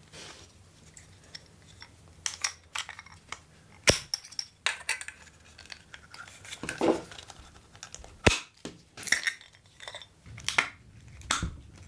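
Irregular clicks, taps and brief scrapes of small plastic and metal parts being prodded and pried apart in a dismantled GU10 LED lamp, with two sharp clicks about four and eight seconds in.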